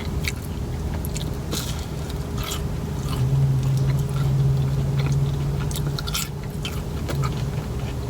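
Close-miked chewing and biting of fried fast food, with scattered short wet mouth clicks. A low steady hum runs underneath and swells from about three to six seconds in.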